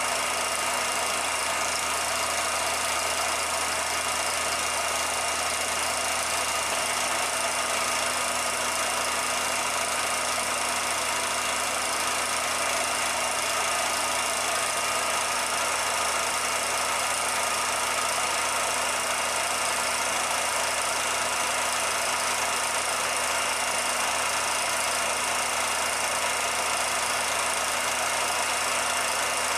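A steady, unchanging machine-like hum with hiss and a few constant tones, with no separate events.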